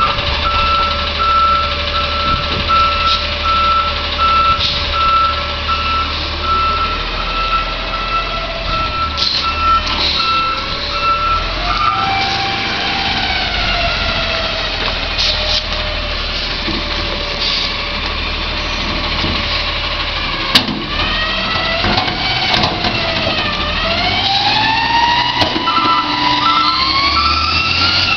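Autocar front-loader garbage truck's reversing alarm beeping steadily over the running engine for about the first twelve seconds. Then the engine revs up and down again and again as the truck manoeuvres and works its hydraulic forks. There is one sharp bang about two-thirds of the way through, and the backup beeping starts again near the end as the forks begin lifting a dumpster.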